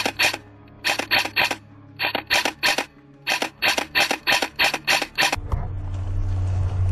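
Airsoft rifle firing rapid single shots in quick strings, about four sharp clacks a second with short pauses between strings. The shooting stops a little over five seconds in, and a steady low hum takes over.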